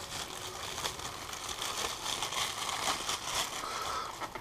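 Clear plastic bag crinkling and rustling as it is handled and pulled off an object, a continuous run of small crackles.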